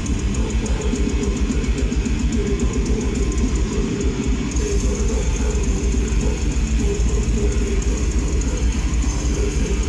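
Heavy metal band playing live: distorted electric guitars over bass and a drum kit, loud and bass-heavy.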